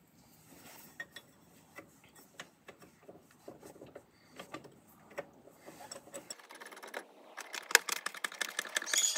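Tools being handled during work on an ATV: scattered light clicks and knocks, growing busier and louder in the last two seconds.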